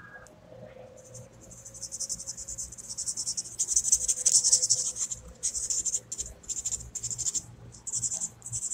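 A marker pen scrawling hurriedly across paper in rapid, uneven strokes, starting about a second in, with short pauses between bursts of writing.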